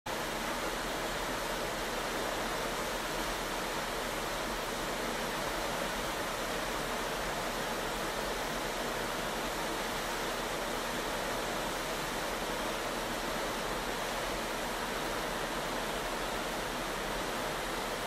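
Steady, even rushing of water churned up in a ship's wake.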